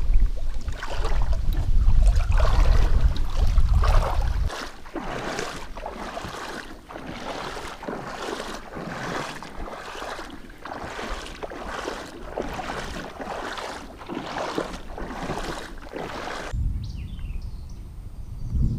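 Kayak paddle strokes dipping and swishing through the water, a steady rhythm of about three strokes every two seconds, stopping about three-quarters of the way through. A heavy low rumble fills the first few seconds and comes back near the end.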